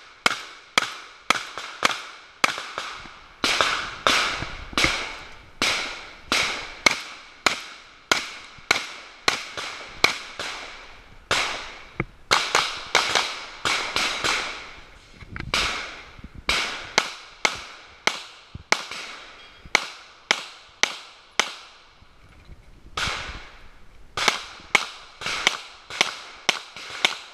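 Shots from a multigun stage, about two a second: a long string of shotgun blasts broken by brief pauses for reloading. After a short break comes a string of pistol shots near the end.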